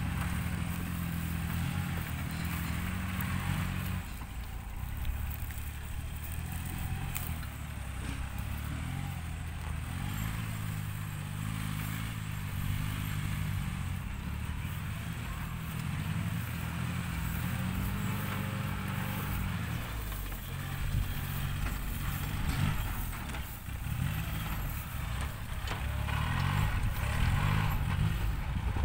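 Farm tractor engine running as it works the field, a low, steady drone whose pitch rises and falls a little as the engine load changes.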